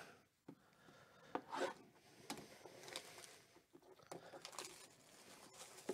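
Faint rustling, rubbing and a few light taps of hands handling a cardboard trading-card hobby box.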